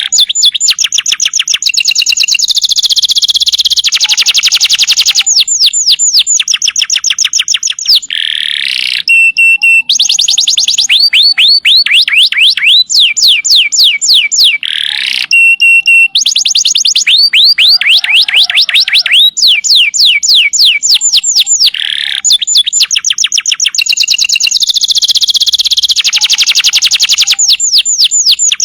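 Domestic canary singing loudly in long rapid trills, each a quick run of repeated sweeping notes, about ten a second. It switches to a new trill every second or two, with short high whistled notes between.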